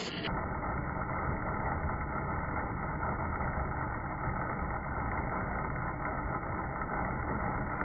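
Chain mortiser on a 3-in-1 wood planer machine running, its chain cutting a mortise hole into a clamped wooden beam. A steady, dull mechanical noise.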